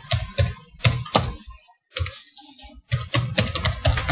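Typing on a computer keyboard: quick runs of key clicks in short bursts, with brief pauses between words.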